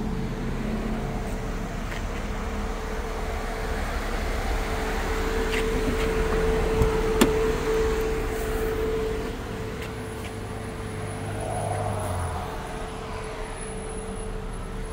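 Steady vehicle hum with a constant whine, and one sharp click about seven seconds in.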